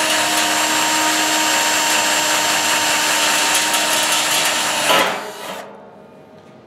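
Cordless drill with a small twist bit boring through a stainless steel kettle wall, a steady whine that stops about five seconds in.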